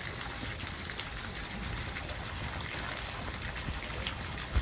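Steady outdoor background noise: an even hiss over a low rumble, with a few faint clicks and a short thump near the end.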